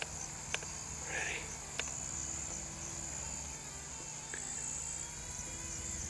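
Insects, likely crickets, chirring in a steady high-pitched trill, with a few faint clicks and a low steady hum under it.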